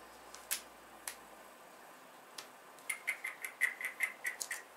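Faint clicks and ticks of handling as a MacBook Pro is lifted out of its cardboard box, with a quick run of about a dozen sharp ticks in the last two seconds.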